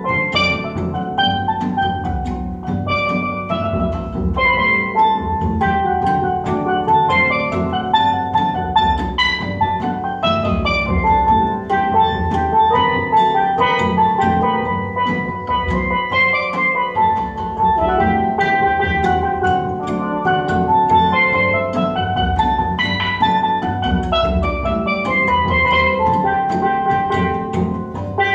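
A steel drum band playing with a hammered dulcimer: a lively tune of quickly struck, ringing steel pan and dulcimer notes over a steady bass drum beat.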